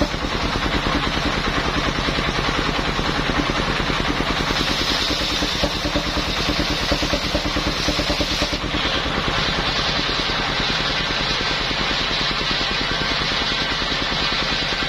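Engine-driven circular sawmill saw (mesin serkel) running steadily while cutting a waru log, the engine pulsing rapidly under a high blade whine. The whine changes about eight and a half seconds in.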